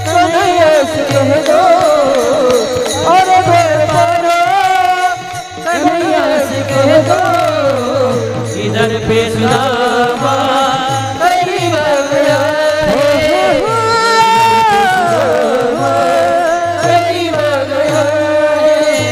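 Varkari kirtan music: a voice singing a drawn-out, wavering melody without clear words, over taal hand cymbals and a repeating low drum beat.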